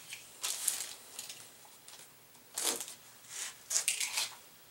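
Handling noise: a few short bursts of rustling and light clatter as the reloading press's small parts and their plastic packaging are handled.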